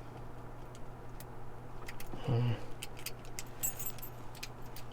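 Metal lock pick ticking and scraping against the pins inside a laminated steel padlock's keyway: scattered small clicks that come faster in the second half, with a brief high metallic scrape just before four seconds. A short low hummed "mm" from the picker about halfway through.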